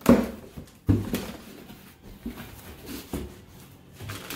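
Cardboard shipping box being opened by hand: two sharp knocks from the flaps and box near the start and about a second in, then softer rustling and small knocks as the flaps are spread and the contents handled.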